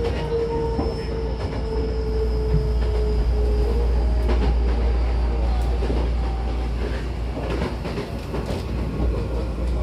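Hankyu 9000-series electric train heard from inside the car while running: a steady low rumble with scattered clicks from the wheels and rails. A thin whine falls slightly in pitch over the first few seconds.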